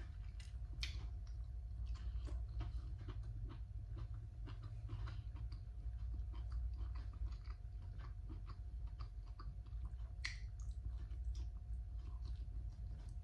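Close-up chewing and biting of cooked green beans eaten by hand: irregular small wet clicks and crunches, with one sharper click about ten seconds in, over a steady low hum.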